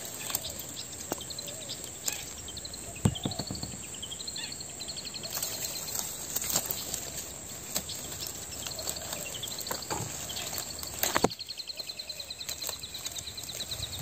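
Long-tailed shrike nestlings begging from the nest: long runs of rapid, high-pitched chirping notes. Leaves rustle, with a few sharp clicks from the nest and palm fronds being handled.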